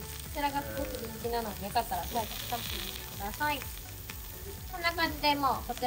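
Lamb slices and onions sizzling on a dome-shaped cast-iron jingisukan grill, a steady frying hiss. Voices chatter over it in short bursts, loudest near the end.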